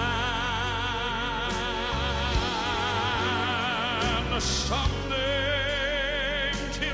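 Gospel song: a male singer holds a long note with wide vibrato over steady instrumental accompaniment. He then moves into the next line and holds a second vibrato note.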